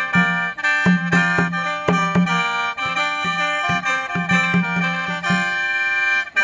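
Khaen, the bamboo free-reed mouth organ of Isan and Laos, playing a quick rhythmic melody over a steady low drone, its chords re-sounded in short pulses; the sound dips briefly near the end.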